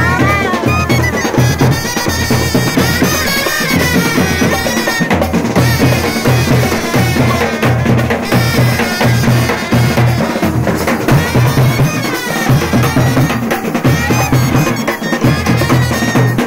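Live brass-and-drum band playing: trumpets carry a wavering melody over a fast, steady beat of metal-shell side drums and a bass drum. The trumpets are loudest in the first few seconds, and the drums keep going throughout.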